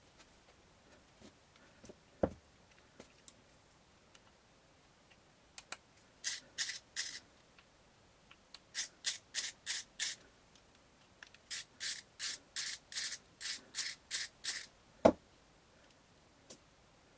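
Short scraping or rubbing strokes by hand, about three to four a second, in three runs separated by pauses, then a single sharp click near the end.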